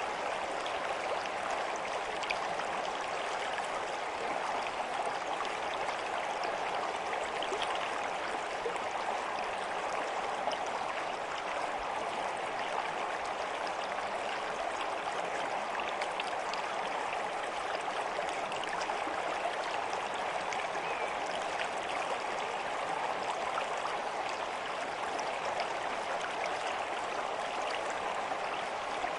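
Running water in a stream: a steady rush with many small splashes and trickles, unchanging throughout.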